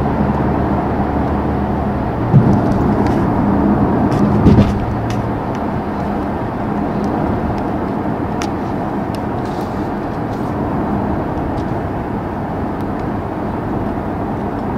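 Steady in-cabin road noise and engine hum from the Mercedes-AMG GLB 35's 2.0-litre turbocharged four-cylinder at cruising speed. Two brief thumps come about two and four and a half seconds in, and after them the sound settles a little quieter.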